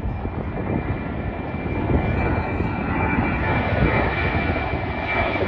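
Jet airliner engines running overhead: a steady rumble with a thin high whine on top, growing slightly louder.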